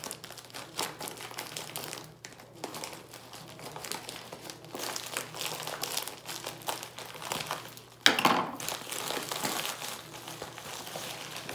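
Scissors cutting open a white padded plastic mailer, with the plastic crinkling and rustling in irregular bursts. A louder sudden crackle comes about eight seconds in.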